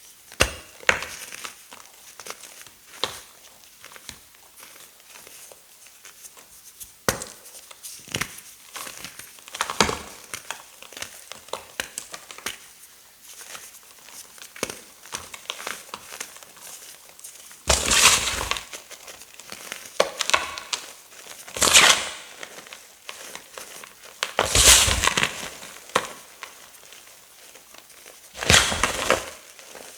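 Block of tough gym chalk with silver glitter being crushed: many small crackles and crumbles, then four louder crunches of about a second each in the second half.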